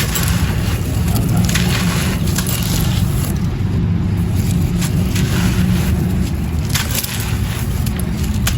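Dry white clay crumbling, with crunchy, grainy crackles that come in uneven bursts over a steady low rumble.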